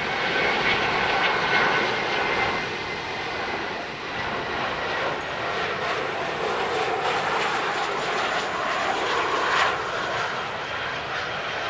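Boeing 737-500 airliner's CFM56 turbofan engines running at low approach power as it comes in to land. A steady jet noise with a faint high whine that drifts slowly down in pitch.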